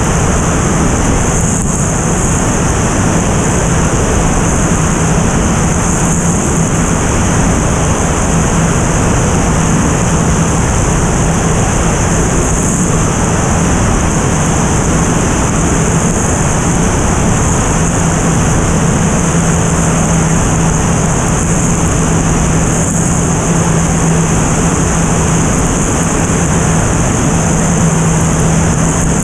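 Single-engine propeller airplane in cruise heard from a camera mounted outside on the tail: loud, steady wind rush over the microphone with a steady low engine and propeller hum beneath it.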